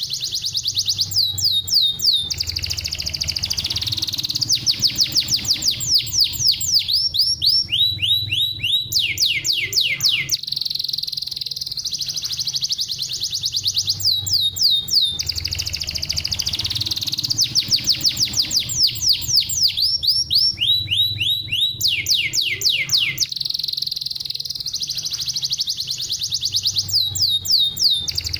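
Domestic canary singing a fast, tightly packed song of rapid trills and quick falling sweeps. The same run of phrases repeats about every 13 seconds, as in a looped training recording.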